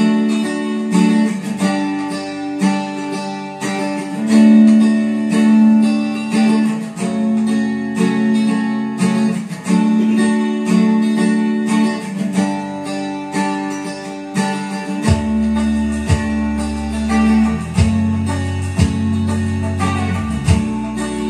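Instrumental karaoke backing track from a TJ Media TKR-305P karaoke player, led by strummed acoustic guitar, with the guide melody switched off and no one singing. A deeper bass part joins about fifteen seconds in.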